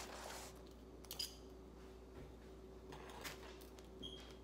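Faint crunching and scraping of a table knife sawing through a crisp thin-crust pizza against a cutting board, in a few short strokes about a second in and again around three seconds.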